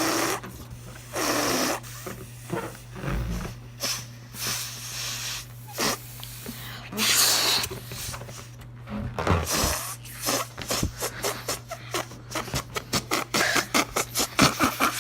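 A child blowing up a rubber balloon in long puffs of breath. Near the end comes a quickening run of short clicks.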